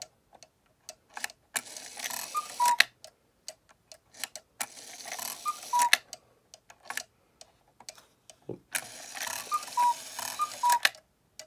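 Regula cuckoo clock calling "cu-ckoo" with its back off: each call is a high note then a lower note from the bellows pipes, with a rushing hiss of air from the bellows. There are four calls, the last two close together near the end, with sharp clicks from the movement in the gaps between.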